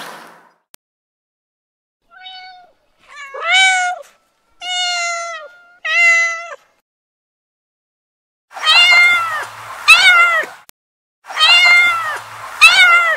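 Kittens meowing: about eight high-pitched meows in short runs with pauses between, the later ones louder.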